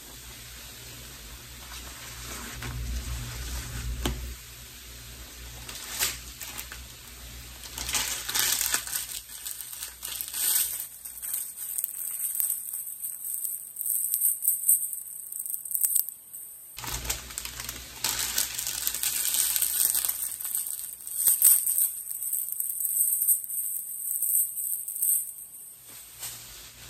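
Soapy sponges squeezed in a bucket of pine-cleaner water, the suds crackling and fizzing in irregular bursts.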